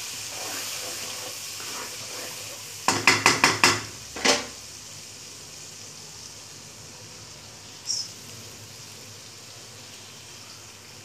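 Hot oil and spice masala sizzling in a wok while being stirred with a spatula, the hiss fading after a few seconds. About three seconds in comes a quick run of about six sharp knocks, with one more just after, from the spatula striking the wok.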